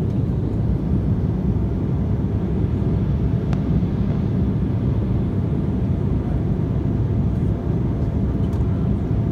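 Steady low noise inside an airliner's cabin in flight, the even rumble of engines and airflow.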